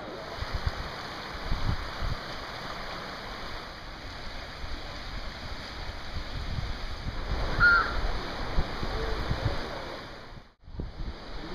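A mountain stream rushing steadily, with gusts of wind buffeting the microphone and a short high chirp about eight seconds in. The sound drops out for a moment near the end.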